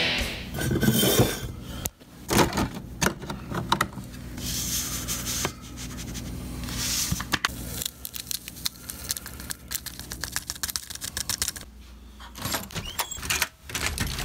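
Clinks, taps and rattles of a stainless steel travel mug and a sweetener packet being handled while coffee is made, over a steady low hum. Around the middle comes a run of quick clicks.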